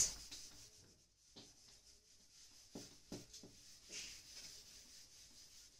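Faint scuffing of a whiteboard eraser wiped across the board: several short strokes from about a second and a half in, over low room tone.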